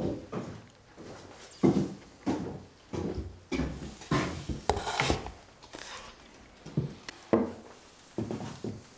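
Irregular wooden knocks and scrapes: footsteps on wooden floorboards and wooden bowls being set down on a wooden table.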